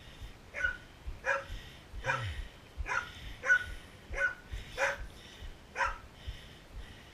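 A dog barking over and over, about nine sharp barks a little under a second apart.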